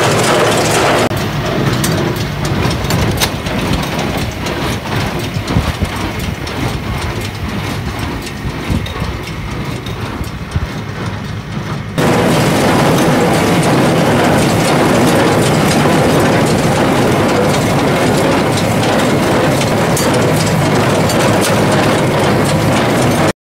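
John Deere 3020 tractor and John Deere 336 square hay baler running together, a steady engine and machinery noise with scattered knocks. The sound changes abruptly about a second in and again about halfway through.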